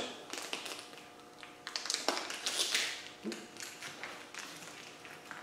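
Crinkling of packaging and light clicks as connecting-rod bearing shells are taken out of their packet and handled, loudest about two to three seconds in.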